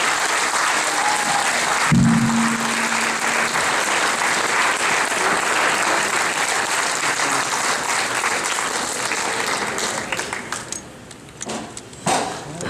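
Audience applauding steadily, dying away to scattered claps about ten seconds in.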